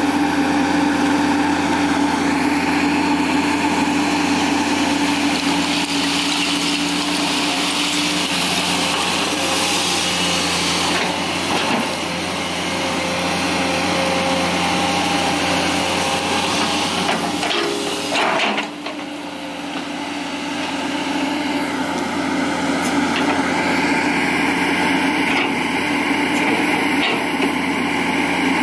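Komatsu PC200 hydraulic excavator's diesel engine running steadily under working load as the boom and bucket move through garbage. The sound dips briefly about two-thirds of the way through, then builds back up.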